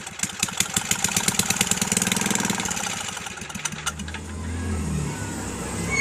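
Small tiller engine running in fast, even firing pulses; about four seconds in the firing gives way to a lower, smoother, wavering sound. The owner says the engine is not getting gas.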